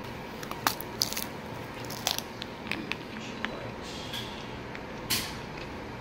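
Scattered light clicks and knocks of handling and movement as someone gets up from a chair and moves off, with a louder brief scuff about five seconds in.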